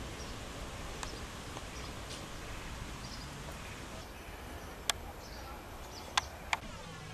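Outdoor garden ambience: a steady low background noise with faint, scattered bird chirps, and three sharp clicks in the second half.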